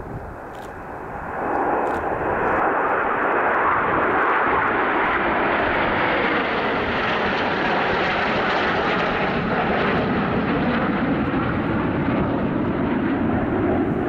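Jet noise from a formation of Aermacchi MB-339 jet trainers flying past overhead, swelling sharply about a second and a half in and then holding as a loud, steady rushing roar with a slowly shifting tone.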